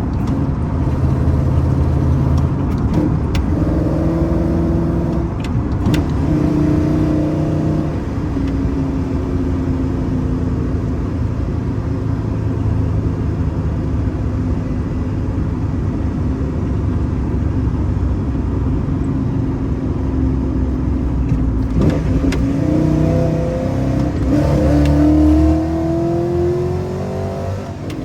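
A cammed pickup-truck engine heard from inside the cab while driving, pulling through the gears of a six-speed manual, its pitch stepping between levels as the gears change. Near the end it revs up steadily under acceleration, the loudest part.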